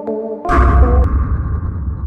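Electronic intro sting music: a few short keyboard notes, then about half a second in a sudden deep boom with a bright hit that rings on and slowly fades.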